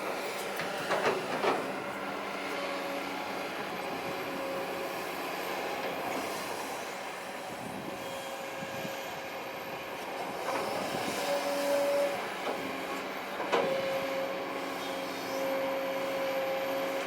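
Kobelco SK200-8 excavator working: a steady engine drone under a hydraulic whine that comes and goes, with sharp metallic clanks about a second in, again shortly after, and once more near the end.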